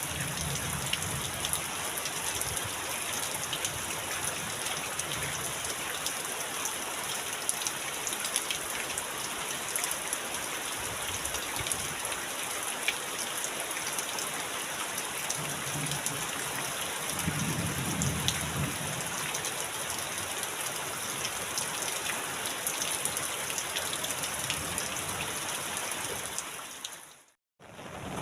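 Heavy rain falling steadily, with many separate drops ticking through the hiss. A low rumble rises in the middle of the stretch. The sound fades out abruptly near the end.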